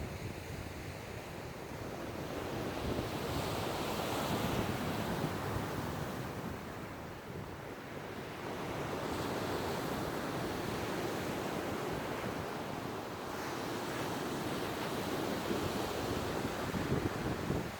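Ocean surf breaking and washing ashore, swelling and easing in slow surges, with wind buffeting the microphone.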